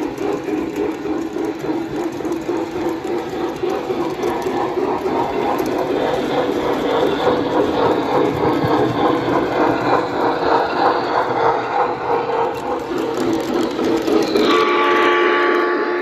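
O scale model steam train running on three-rail track, its wheels clattering in a steady rhythm as it passes close by. About a second and a half before the end, a steady chord-like steam whistle from the locomotive's sound system starts.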